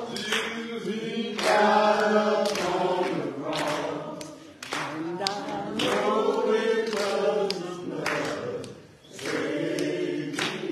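Group singing in church: a man leads the congregation through a microphone, and other voices join him in slow, long-held notes.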